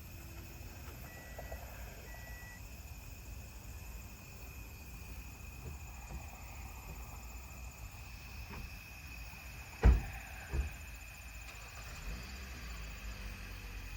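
Crickets chirring steadily over a low rumble. About ten seconds in come two sharp bangs less than a second apart, the first much louder.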